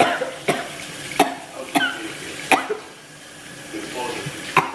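A woman coughing hard, about six separate coughs, with a gap of about two seconds before the last: something has gone down her throat the wrong way.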